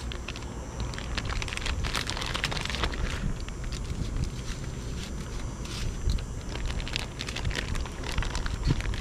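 Plastic zip-top bag crinkling and rustling in irregular crackles as raw fish fillets are slid into it and the bag is handled, over a steady low rumble.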